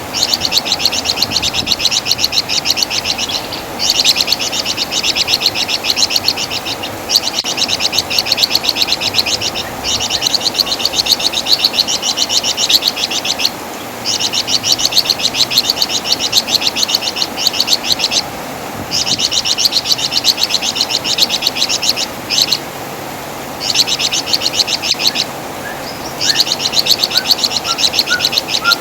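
Flamboyan (wergan Jawa) songbird giving its high, fast rattling trill in repeated bouts of a few seconds each, broken by short pauses.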